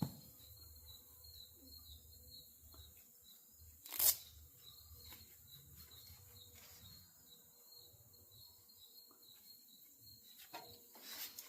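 Faint, steady chirping of birds or insects, with a few small clicks and one sharp knock about four seconds in.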